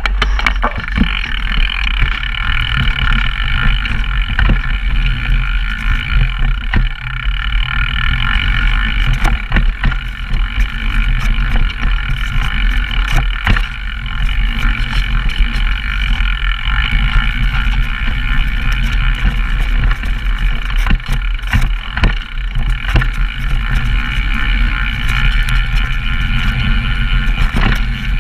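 Downhill mountain bike descending a rough dirt trail, picked up by bike- or rider-mounted cameras. A continuous hiss of tyres and drivetrain runs over a heavy low wind rumble, with frequent sharp clacks as the bike rattles over bumps.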